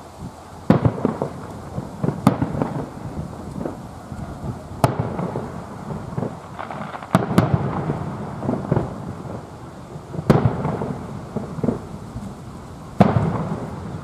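Distant aerial fireworks shells bursting: about seven sharp bangs, irregularly spaced a second or more apart with two in quick succession near the middle, each followed by a low rolling rumble.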